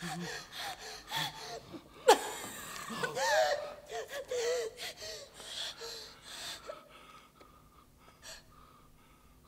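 A woman gasping for breath and crying out in short wavering sounds, acted as a dying character's last breaths on stage. There is a sharp gasp about two seconds in. The sound trails off to near silence for the last couple of seconds.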